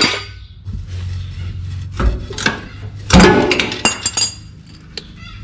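Metal clinks and knocks of hand tools working a fuel-tank mounting bolt under a vehicle, scattered and irregular, busiest about three seconds in, over a steady low hum.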